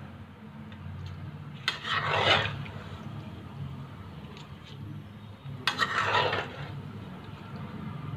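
A spoon scraping against a cooking pot as rice with ghee is stirred, two longer scrapes about four seconds apart, over a steady low hum.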